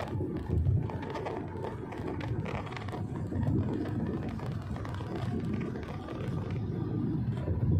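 Wuling Almaz 1.5 turbo SUV on the move: a steady low rumble of engine and road noise.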